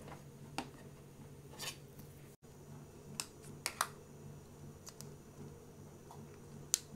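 Faint handling of a plastic Play-Doh tub as its snap-on lid is pried off: a few sharp plastic clicks, two close together about three and a half seconds in, over a low steady hum.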